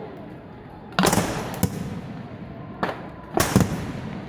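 Bottle rockets from a beehive fireworks launcher bursting in sharp bangs: one about a second in, another just after, a smaller one near three seconds, then the loudest pair soon after, over a steady background din.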